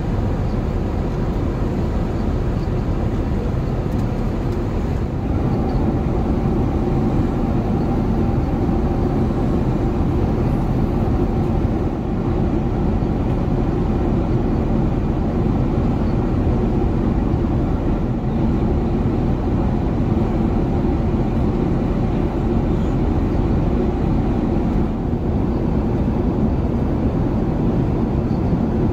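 Steady cabin noise of an Airbus A380 airliner in cruise: an even, low rumble of engines and airflow, a little louder from about five seconds in.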